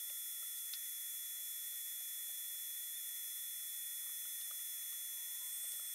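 Faint, steady high-pitched hiss with several thin, constant whining tones and a few faint ticks, with no distinct event.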